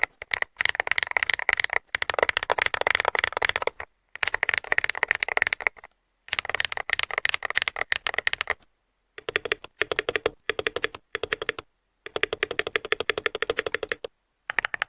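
Fast typing on an AIYAN M168 Ultra magnetic-switch mechanical keyboard with purple star switches: dense runs of rapid keystrokes in several short takes, each cut off abruptly by a silent gap. The later runs sound lower and deeper than the first ones.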